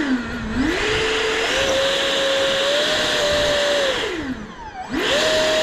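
Electric ducted fan of a small 3D-printed RC jet running up in steps to a steady high whine, throttling back about four seconds in, then quickly run up again near the end. It is being run on the ground to blow snow and water out of the fan duct.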